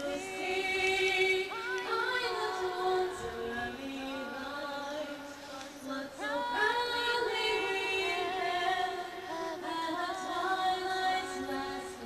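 A woman singing the national anthem solo into a microphone, unaccompanied, with long held notes and sliding pitch.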